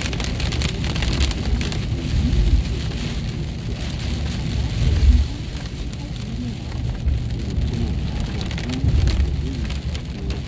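Heavy rain drumming on a car's windshield and roof, heard from inside the moving car, over a steady low rumble of road and engine noise that swells briefly about five seconds in.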